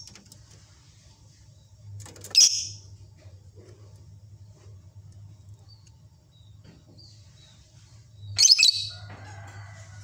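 Lovebird giving two short, shrill, high-pitched calls, one a couple of seconds in and another near the end, with small fainter chirps between. A steady low hum runs underneath.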